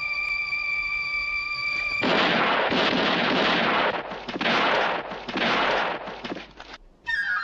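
Film title-sequence sound effects: a steady high ringing tone that cuts off about two seconds in. Several rough, gunfire-like blasts follow, each about a second long with short gaps between them, and a brief ringing tone starts near the end.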